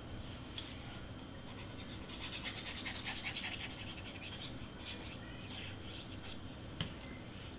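Quiet paper-crafting handling sounds: a cardstock piece being handled and glued, with a fast scratchy rattle about two seconds in and a couple of small clicks.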